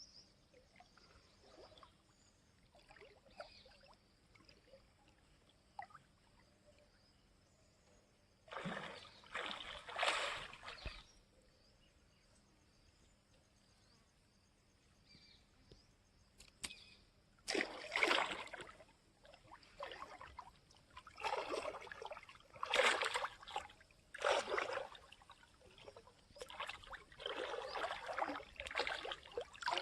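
Water splashing and sloshing in repeated noisy bursts: two near the middle, then a series about one every second or so through the second half. A faint, steady, high insect-like tone sits under the quiet first part.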